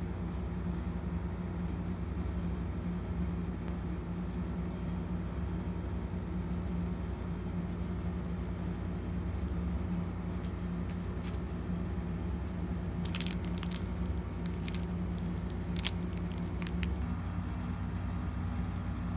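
A steady low hum in the background, and past the middle a few seconds of sharp, scattered clicks as small plastic safety eyes are dropped onto a wooden desktop.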